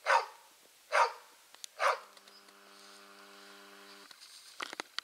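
Hunting huskies barking at a sable treed in a pine, three loud barks about a second apart. The barking stops, a faint steady tone is held for about two seconds, and a few sharp clicks follow near the end.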